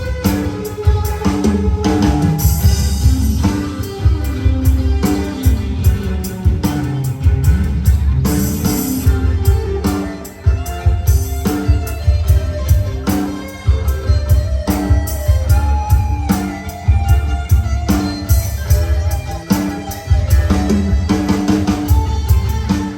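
Recorded music with a strong bass line and a steady drum beat, with guitar, played back loud; it stops abruptly at the end.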